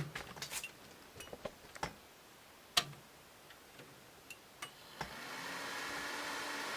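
Scattered light clicks and taps, then about five seconds in an old desktop PC's fans spin up into a steady whir with a faint hum.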